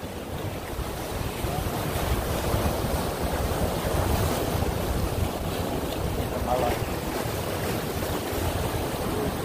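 Waves washing and breaking against the jetty rocks, with wind rumbling on the microphone.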